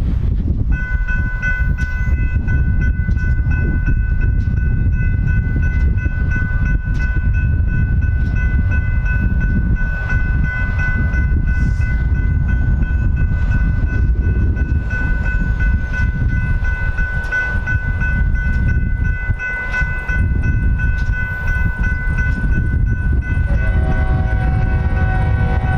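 Railroad crossing warning bell starts ringing about a second in and keeps ringing steadily, over a constant low rumble of wind on the microphone. Near the end an approaching locomotive horn begins to sound.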